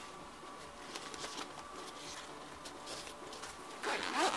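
Nylon camera bag being handled, with faint fabric rustling and light taps, then its zipper being pulled open near the end with a louder rasp.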